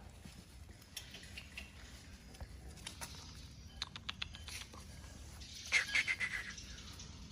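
Puppies squeaking and whimpering in a short series of high calls a little before six seconds in, with faint scattered clicks and taps around them.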